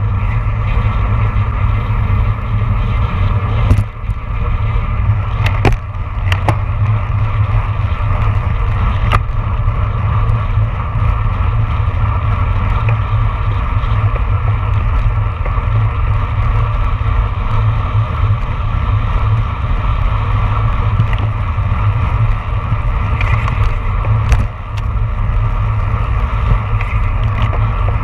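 Wind rushing over a handlebar-mounted camera's microphone on a road bike at racing speed, mixed with tyre and road noise, steady and loud. A few sharp clicks are heard, about four seconds in, around six and nine seconds, and near the end.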